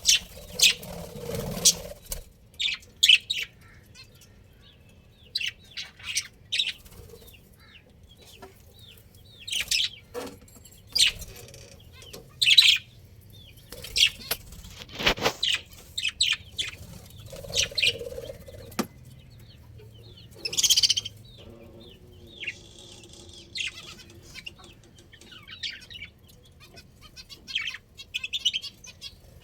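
Budgerigars chirping in short, scattered high calls with quiet gaps between them, with a few sharp knocks, the loudest about halfway through.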